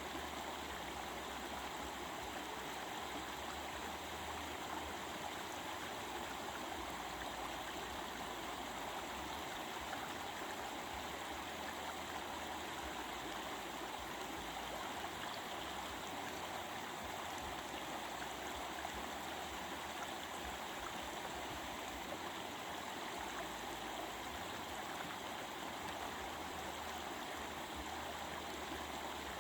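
A stream babbling and rushing steadily over rocks, a constant even wash of water sound.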